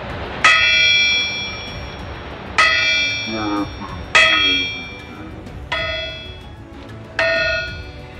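Five hammer blows on the hot axe head over a steel bar, each leaving a bright metallic ring that fades over about a second; the blows fall roughly a second and a half apart as the smashed eye is worked back into shape.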